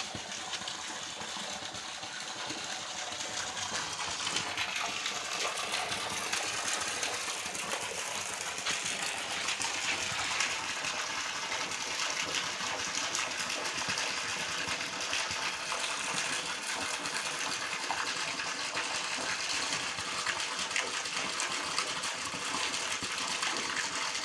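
Water pouring from a stream into a fish tank and splashing on the surface, a steady dense crackle of small splashes.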